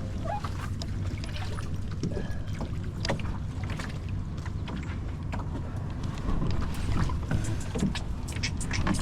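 Canoe being paddled on a river: irregular splashes and knocks of paddles in the water, over a steady low wind rumble on the microphone.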